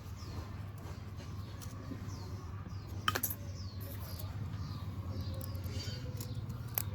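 Short, high, falling chirps repeating over a steady low hum, with a sharp click about three seconds in and another near the end.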